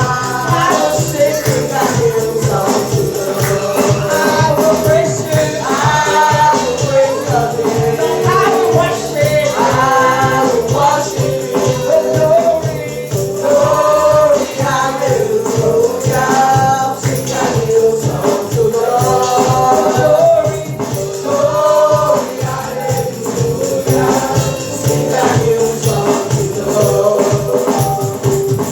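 Live gospel praise-and-worship music: several voices singing a worship song over instrumental accompaniment with a steady shaken-percussion rhythm.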